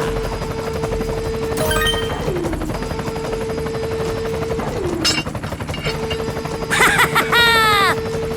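A radio-controlled model construction machine's motor whining steadily, its pitch sagging briefly twice as it takes load, with a few sharp clicks. Near the end comes a loud clattering burst with a falling, whistle-like tone.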